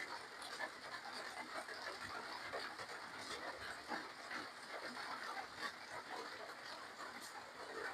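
A person eating close to the microphone: wet chewing and lip smacks, heard as a string of small irregular clicks.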